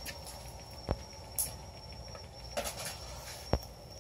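Steady high-pitched drone of night insects, with two sharp knocks, one about a second in and one near the end, and a couple of brief hiss-like rushes in between.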